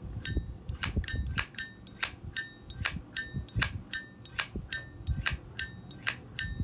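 Windproof lighter's metal lid flicked open and snapped shut over and over, about three sharp metallic clicks a second, each with a short high ringing ping. This is the lid-and-cam 'clink' that collectors listen to, heard here on a late-1980s domestic-made lighter whose cam is not yet worn.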